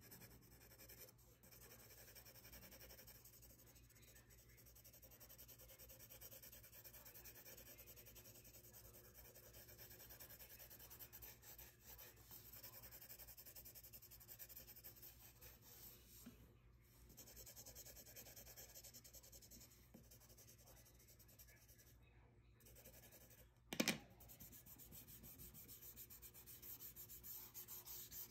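Faint scratching of a pencil scribbling shading onto paper, then fingers rubbing the paper to blend the graphite near the end. A single sharp tap about three-quarters of the way through.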